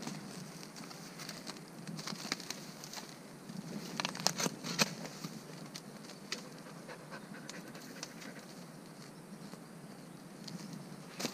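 A golden retriever digging in soil and dry bamboo leaves, its paws scratching and the litter rustling in short spurts every few seconds.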